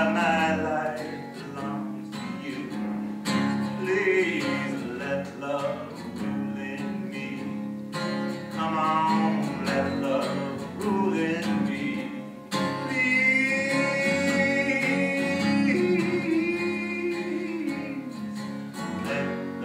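Acoustic guitar strummed steadily while a man sings over it, holding one long note a little past the middle.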